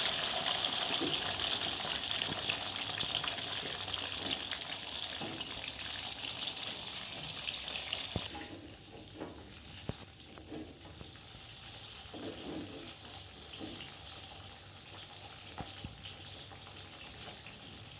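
Red chilies, shallots and garlic frying in hot oil in a wok. The sizzle is loud at first and dies down to a softer hiss about eight seconds in. A metal skimmer stirring in the wok gives scattered clicks and scrapes.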